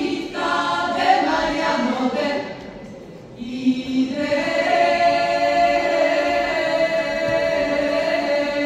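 Female folk ensemble singing a Balkan song a cappella in harmony. The phrase breaks off briefly about three seconds in, then a long held chord follows, with a steady low note under the higher voices.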